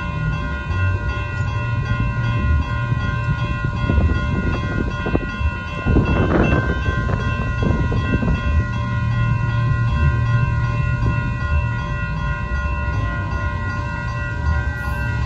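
Railroad crossing warning bell ringing steadily while the gates are down, over a low rumble from an approaching train. The rumble grows louder around six seconds in.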